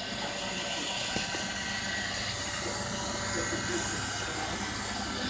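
iRobot Roomba robot vacuum running: a steady motor whir with a thin high whine over a low hum.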